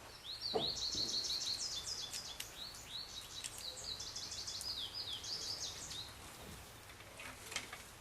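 A songbird singing a long, fast run of high, repeated chirps for about six seconds. There is a low thump about half a second in.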